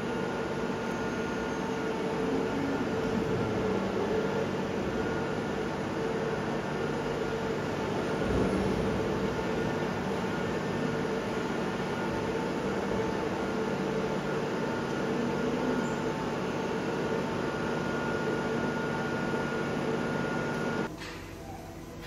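Steady mechanical running noise with a constant hum, a machine at work. It cuts off abruptly near the end, leaving a quieter background with a few clicks.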